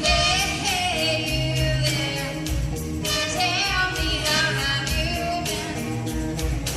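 Music: a song with a lead singing voice over a band with a steady beat.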